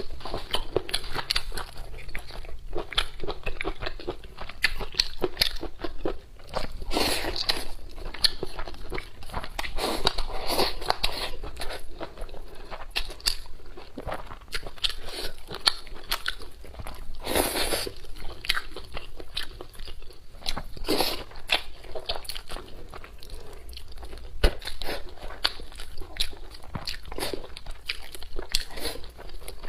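Close-up eating: continuous biting, crunching and chewing of food, with louder crunches every few seconds.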